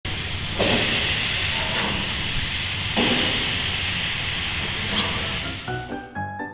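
Pineapple rings sizzling on a hot barbecue grill, a steady loud hiss with two sudden louder surges, about half a second in and again at three seconds. Near the end the sizzle fades out as keyboard music comes in.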